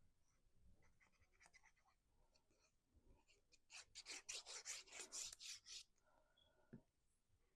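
Quick scratchy strokes on cardstock, about five a second for some two seconds in the middle, as glue is spread onto a paper piece; a faint thud near the end.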